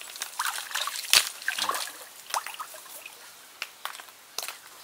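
Shallow stream water stirred by hands groping along the bottom: small irregular splashes and trickles, with a sharp click about a second in.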